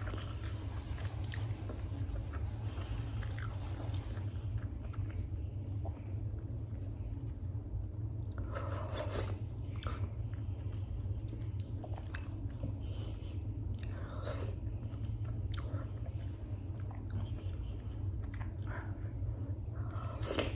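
Close-miked chewing and mouth sounds of a person eating freekeh with beef: irregular wet smacks and clicks coming in clusters, over a steady low hum.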